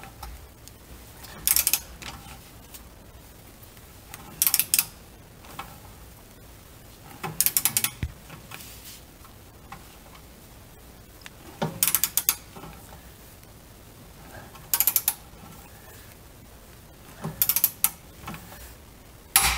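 Click-type torque wrench ratcheting on the rear shock's lower bolt nut while it is torqued toward 30 foot-pounds. It comes in seven short bursts of rapid clicks, about every three seconds.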